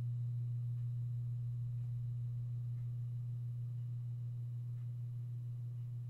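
A steady low hum, unchanging, with a few faint knocks from handling plastic parts.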